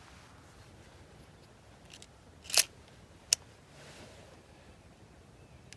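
Trigger mechanism of an unloaded Smith & Wesson Bodyguard 2.0 .380 pistol being dry-fired: a faint click about two seconds in, a louder click about two and a half seconds in, and a sharp short click under a second after that as the trigger resets.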